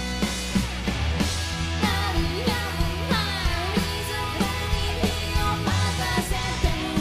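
Live rock band playing: electric guitar, bass and a steady drum beat, with a woman singing lead.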